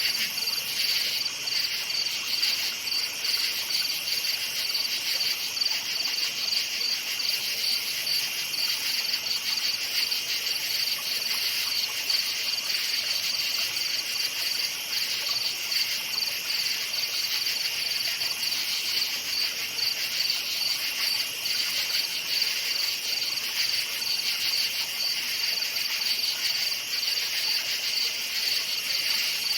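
A dense chorus of crickets chirping steadily, their calls forming a continuous high-pitched pulsing trill.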